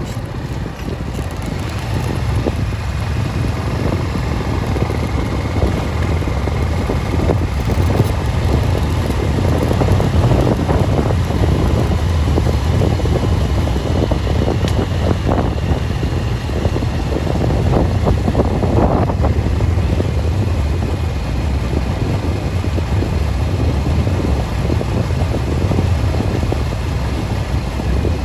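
A vehicle travelling along a paved road: a steady low rumble of motion and tyres, with wind buffeting the microphone.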